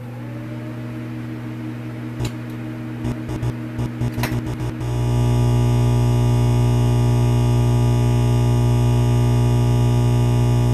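Neon sign flickering on as a sound effect: a low electrical mains hum broken by crackling clicks, then about five seconds in it switches fully on into a louder steady buzz.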